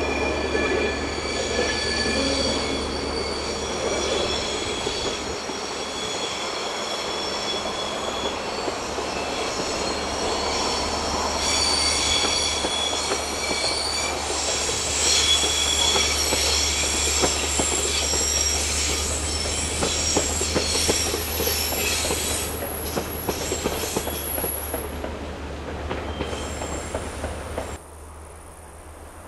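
Diesel-hauled passenger train rounding a tight curve, its wheel flanges squealing in several high, steady tones over a low, steady drone. The sound cuts off abruptly near the end, leaving a faint outdoor background.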